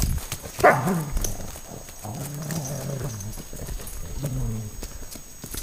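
Running footsteps crunching on a gravelly, leaf-strewn track. A short falling cry comes about half a second in, and a low drawn-out vocal sound runs from about two to four and a half seconds.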